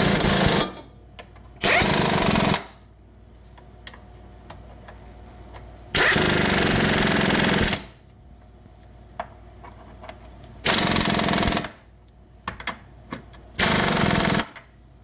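Impact wrench with a 19 mm socket hammering control-arm bolts tight in five short bursts, the longest nearly two seconds.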